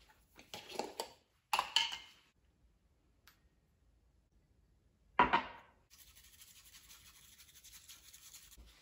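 Light clicks and taps of a small tin and bamboo scoop, one sharp knock about five seconds in, then a bamboo matcha whisk (chasen) brushing rapidly and steadily against the bowl from about six seconds in as the matcha is whisked.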